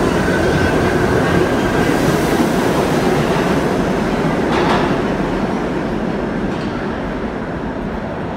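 New York City Subway G train of R68-family cars running out of the station, a loud steady rumble of wheels on rail and running gear with a sharp clack about halfway through. The noise fades steadily over the last few seconds as the train recedes into the tunnel.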